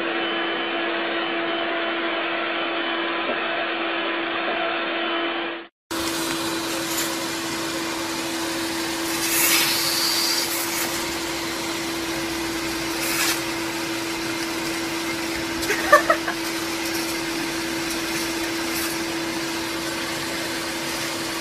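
Vacuum cleaner running with a steady hum, cut off for a moment about six seconds in and then running on. A few short clicks come about sixteen seconds in.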